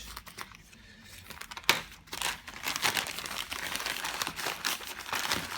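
Packaging crinkling and rustling as a mailed parcel is handled and opened, with a sharp snap about a second and a half in, after which the crinkling turns dense and continuous.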